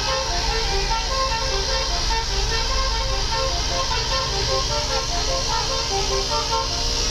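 Telolet horn, a multi-tone vehicle air horn, playing a quick tune of short notes that step up and down in pitch, several a second, over a low vehicle rumble.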